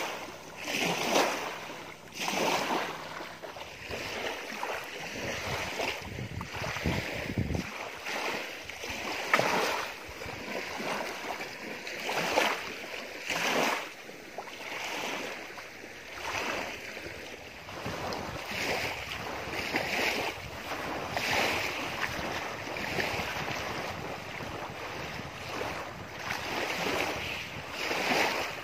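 Small waves lapping and splashing against a lake shore, surging every second or two, with wind blowing across the microphone.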